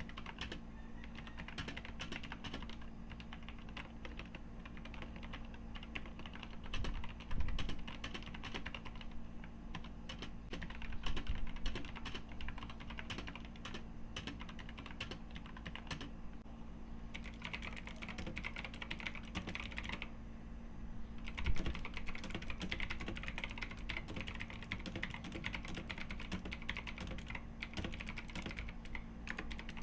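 Typing on a CPS Tech CT87 mechanical keyboard: a continuous fast stream of key clacks, with two short breaks around the middle.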